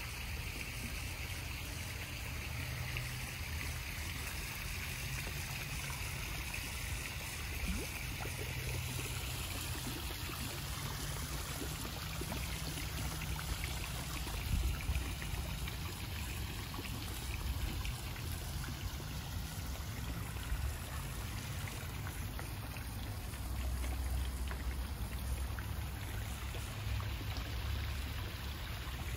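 Steady rushing and trickling of a small garden pond waterfall, with a low, uneven rumble underneath.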